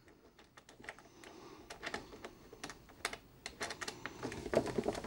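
Light, irregular plastic clicks and taps from handling an air cooler's pull-out plastic water tank, getting busier in the second half.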